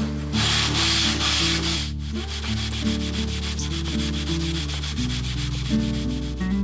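Sandpaper glued to a level being rubbed in regular back-and-forth strokes along the edge of a Sitka spruce guitar top plate, truing the joint. There is a short break about two seconds in, after which the strokes continue a little more softly. Background guitar music plays underneath.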